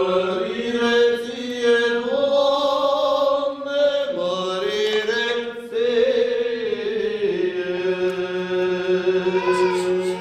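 Orthodox liturgical chant: a voice sings a slow, melismatic melody over a steady held drone note (an ison).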